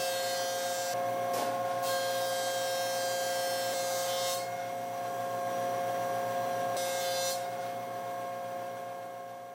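A workshop power-tool motor running steadily with a whining tone, with stretches of high hiss and scraping that come and go. The sound fades out near the end.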